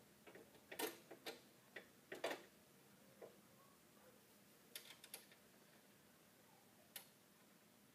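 Near silence broken by a handful of faint, irregular clicks and taps of shock bolts and hand tools as a rear shock is fitted into a snow-bike track kit.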